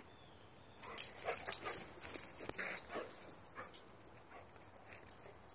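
A dog panting in short irregular puffs, with soft knocks and footfalls on grass during a chasing game. The loudest knock comes about a second in.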